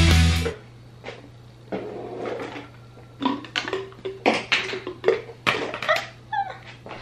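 Plastic children's cups and bottles being set down and shuffled on a fabric dish drying mat on a kitchen counter: a string of light knocks and rustles, with a short pitched squeak or whine near the end. A steady low hum sits underneath.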